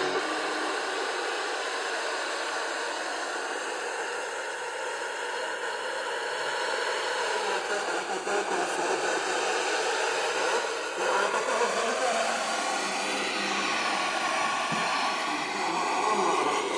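Steady FM hiss from a portable SDR radio receiver's speaker, tuned to a weak FM signal around 94.7–94.8 MHz that is mostly buried in noise.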